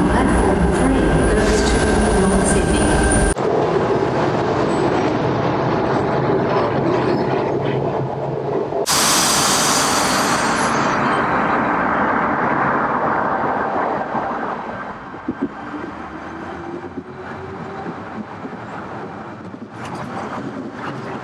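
Sydney Tangara electric suburban trains moving through stations, their traction motors whining. About three seconds in the sound changes abruptly, and near the middle a loud rushing noise starts suddenly and fades away over several seconds as the train moves off.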